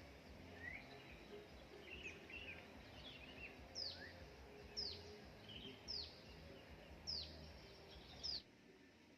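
Wild birds calling: a run of sharp, high whistles that drop steeply in pitch, about one a second, with softer chirps among them over a low hum. The sound drops away abruptly near the end.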